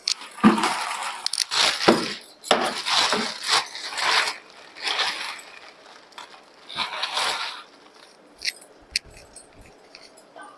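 Metal kitchen utensils clinking and scraping in several short bursts while tempering spices are spooned out.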